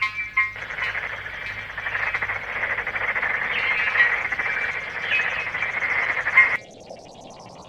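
A few short high beeps, then a dense chorus of rapid, pulsing croaking calls that cuts off abruptly about six and a half seconds in.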